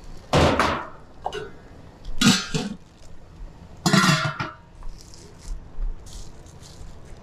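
Dishes clattering in a food-stall kitchen: three loud bursts of bowls and crockery knocking together about two seconds apart, then a few lighter clinks.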